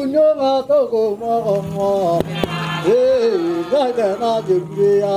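Endorois men singing a traditional dance song together, the melody sliding between notes over a lower note held at times.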